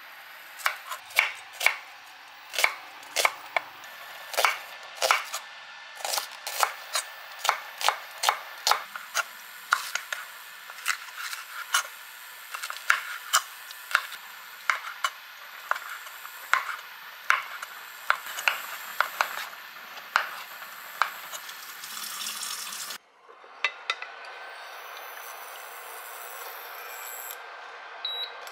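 Chef's knife slicing garlic, onion, bell pepper and sausages on a wooden cutting board: sharp, uneven chops about one or two a second, each blade stroke knocking on the board. The chopping stops near the end and gives way to a steady faint hiss.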